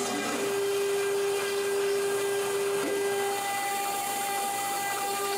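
CNC router spindle carving cherry wood with a small bit: a steady high-speed whine with the hiss of cutting, and a tone whose pitch steps up about three seconds in as the machine changes its move.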